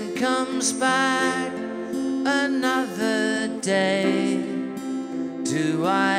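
Live acoustic music: a strummed acoustic guitar holds the chords while a wavering, sliding melody line carries on above it.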